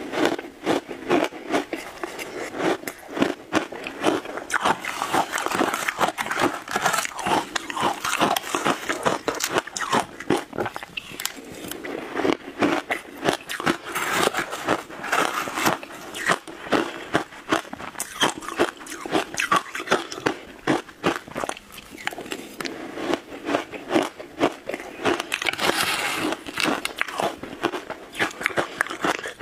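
A person crunching and chewing mouthfuls of shaved ice, picked up close by a clip-on microphone: a dense run of sharp, rapid crunches that keeps on steadily.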